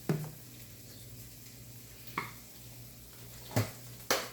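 A few light knocks and clicks from handling kitchen containers and plastic water bottles: one at the start, one about two seconds in, and two close together near the end, over a low steady hum.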